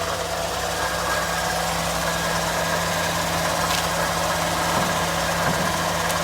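Car engine idling steadily at its normal idle speed, heard from close to the hood.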